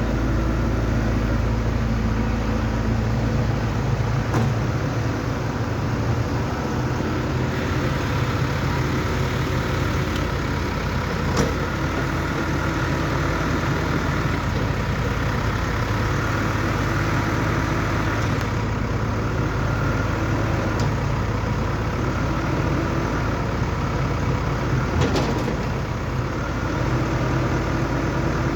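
Excavator's diesel engine running steadily, its note shifting now and then, with a few short sharp clicks.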